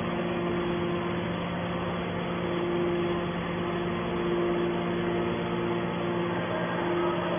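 Hydraulic scrap metal baler's power unit running with a steady hum and a higher tone over it, which drops out briefly about a second in.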